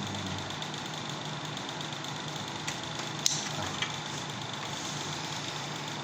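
Window air conditioner running with a steady hum, and a few sharp clicks a little past the middle, one of them loud.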